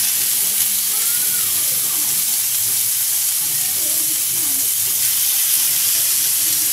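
Spice-marinated salmon fillet sizzling in hot olive oil in a griddle pan, a steady high hiss of shallow frying.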